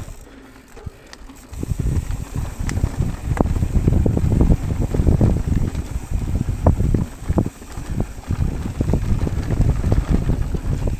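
Mountain bike descending a dirt trail at speed: wind rushing over the microphone and tyres rolling over the dirt, with frequent knocks and rattles from the bike over bumps. It gets louder about a second and a half in.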